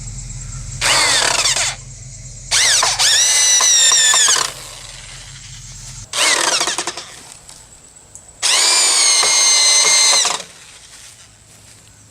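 Cordless drill driving wood screws, its motor whining in four bursts of one to two seconds each. The pitch climbs as the motor spins up and drops as it slows at the end of each burst.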